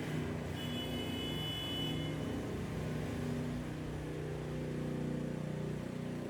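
Skid steer's engine running steadily under drive-test manoeuvres, with a brief high whine starting about half a second in and lasting under two seconds.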